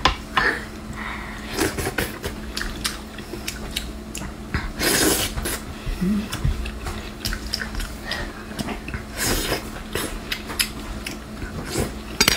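Close-up wet chewing of skewered shellfish in chili sauce, full of sticky mouth clicks and smacks, with two longer, noisier wet sounds about five and nine seconds in.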